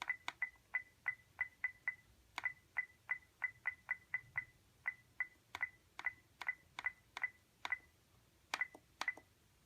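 Buttons on an iRobot Roomba 880 pressed over and over, each press a click and a short, high beep, about three a second with a few short pauses: the schedule time being stepped forward in 15-minute increments.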